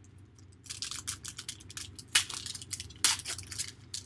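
Foil wrapper of a Panini Contenders Draft Picks football card pack crinkling and tearing as it is ripped open by hand. It comes as a run of sharp crackles, loudest about two and three seconds in.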